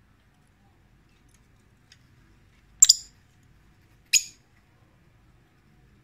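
Peach-faced lovebird calling: two short, high-pitched chirps about a second and a half apart, the first a quick double.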